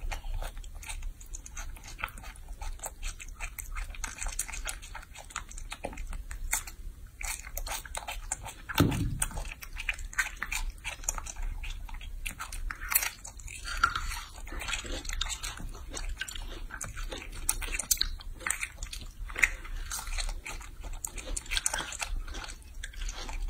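A baby macaque biting and chewing fruit close to the microphone: a dense run of wet, clicky smacks and crunches. About nine seconds in there is one brief low sound that drops in pitch.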